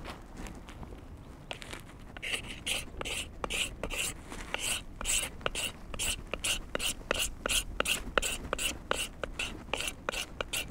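Mora knife blade scraping the factory lacquer off the wooden handle of a Juco hatchet. The strokes are short and even, about three a second, and start about two seconds in.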